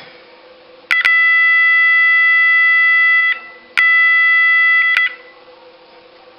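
Roshni electronic fire alarm sounder, run on 27 volts, sounding one of its dip-switch-selected tones: a loud, high-pitched steady tone in two blasts, the first about two and a half seconds long and the second about a second, each starting and stopping abruptly.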